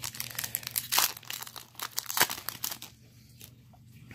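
Foil wrapper of a Pokémon TCG Roaring Skies booster pack crinkling and tearing as it is opened: a quick run of crackles for about two seconds, then only a few faint rustles.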